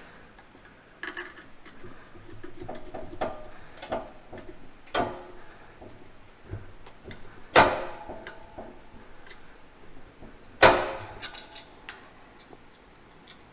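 Sharp metal-on-metal knocks and clanks with a brief ring, a handful of separate strikes a few seconds apart, the two loudest about halfway through and near the end, with small clicks between. This is a tractor PTO assembly being worked loose from the dowel pins it is wedged on.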